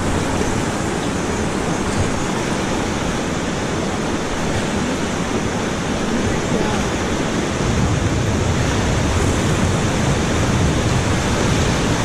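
Steady rushing of the Beas River's fast water, a loud even roar that grows deeper about eight seconds in.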